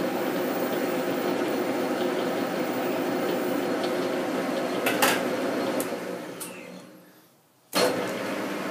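Metal lathe running with a steady drone from its spindle and gearing. There is a sharp click about five seconds in. The sound then fades almost to silence and cuts back in abruptly near the end.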